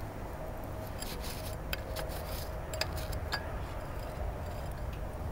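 Scattered light clicks and rubbing of small metal engine parts being handled and wiped during clutch cleaning.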